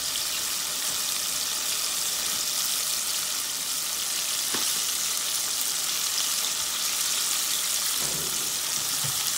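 Flour-coated fish fillets deep-frying in hot oil in a deep pot: a steady, even sizzle with fine bubbling.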